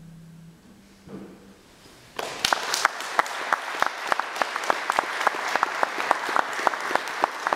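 A low held note from the closing song fades out, then about two seconds in an audience starts applauding, steady clapping with many sharp individual claps standing out.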